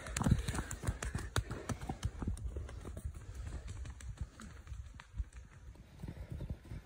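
Footsteps of several runners jogging on a dirt path: a quick patter of foot strikes, loudest in the first second as they pass close by, then fainter as they run on.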